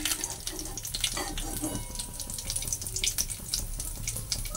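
Cooking oil sizzling in a kadhai, a steady hiss scattered with many small irregular crackling pops from bits of dough and spice frying in it.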